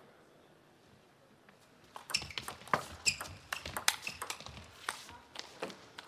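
Table tennis rally: the celluloid ball clicking sharply off the rubber-faced bats and bouncing on the table in quick succession, starting about two seconds in after a quiet pause, the clicks thinning out near the end as the point finishes.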